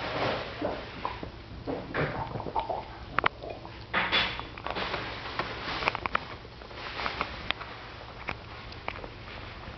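Two Boston terriers sniffing and snuffling at close range, with short noisy puffs of breath and scattered sharp clicks as they nose at each other and at a bone on a rug.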